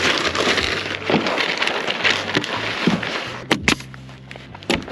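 Synthetic roofing underlayment rustling and crinkling as it is spread over OSB roof sheathing, then a few sharp shots from a pneumatic nailer fastening it, near the end.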